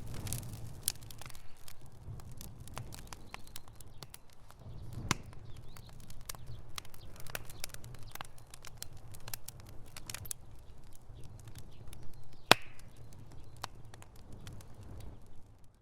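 Fire crackling: frequent sharp pops and snaps of varying loudness over a low steady rumble, with one loud pop near the end.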